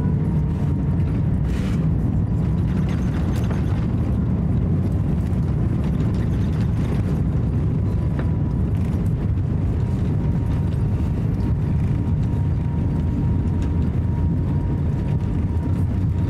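Cabin noise of an Airbus A350-900 over the wing on its landing roll: a steady low rumble of engines, wheels and airflow with a faint steady whine, and a few light knocks in the first four seconds.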